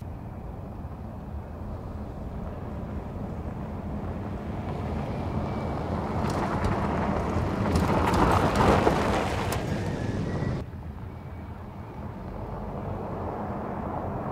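2024 Toyota Tacoma i-Force Max's 2.4-litre turbocharged four-cylinder hybrid engine pulling the truck along a dirt track, engine hum and tyres on loose dirt growing louder to a peak as it passes close, about two-thirds of the way through. The sound then drops away abruptly and builds again as the truck approaches once more.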